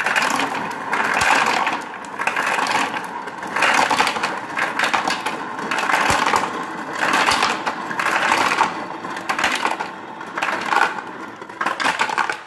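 Refrigerator door ice dispenser dropping ice cubes into a drink bottle, the cubes clattering down in repeated surges about once a second.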